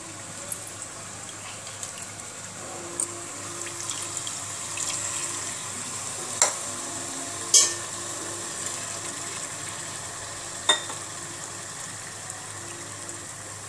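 Tamarind extract poured into a pressure cooker of frying mutton, the liquid splashing and sizzling in the hot masala. A few sharp knocks against the pot, the loudest about halfway through.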